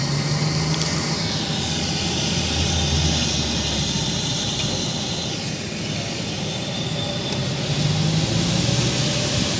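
A steady low droning hum with an even hissing rush above it. The rush shifts in pitch about a second in and again around five seconds in, without breaking off.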